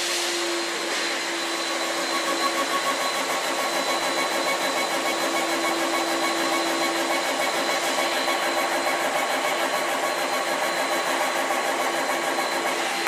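Laser engraving machine running as it engraves acrylic: a steady whir and hum, with a fast, regular pulsing starting about two seconds in.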